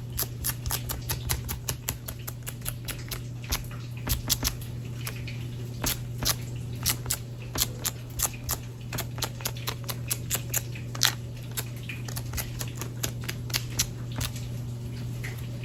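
A dust-removal sticker being dabbed again and again on a tablet's glass screen protector, making quick, irregular light taps and ticks at a few per second, over a steady low hum.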